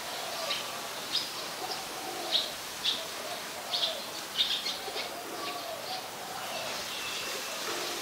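Male rock pigeon cooing in repeated low, arching phrases, with short, sharp chirps of small birds in the background.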